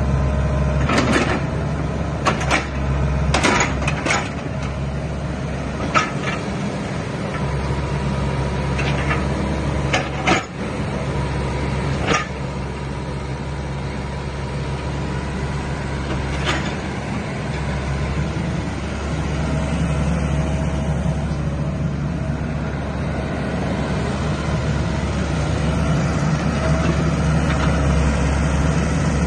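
Sany SY60C tracked mini excavator running, its diesel engine note steady but shifting with load as the machine slews and works its boom. Several sharp knocks come in the first half.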